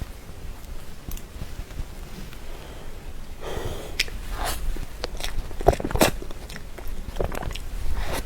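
Close-up mouth sounds of someone eating soft cream cake: quiet at first, then from about halfway through a run of wet chewing and sharp lip smacks.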